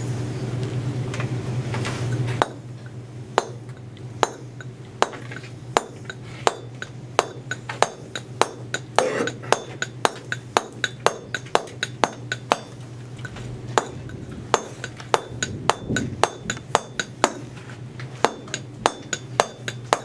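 Mason's chisel being struck in a quick, even run of light taps, about two or three a second, cutting drafted margins along the edge of a stone block for a chamfer. A low hum drops away about two seconds in, before the taps begin.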